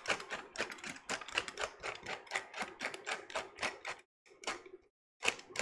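Hand-twisted pepper mill grinding black pepper, a rapid run of crunching clicks that stops about four seconds in, followed by two short twists near the end.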